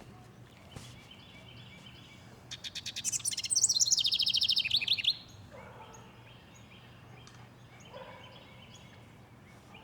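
A songbird sings close by: a rapid run of repeated notes that becomes a trill falling steadily in pitch, about two and a half seconds long and starting about two and a half seconds in. Fainter bird calls and chirps continue in the background.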